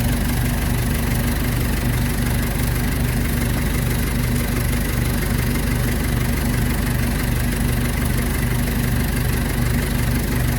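Ford 755B backhoe's diesel engine idling steadily.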